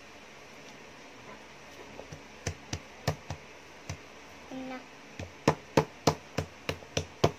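A run of sharp taps as a metal spoon's edge is pressed repeatedly through soft mashed-potato dough onto the table to stamp smiley mouths, coming faster and louder in the last couple of seconds, about three a second. A short vocal sound about midway.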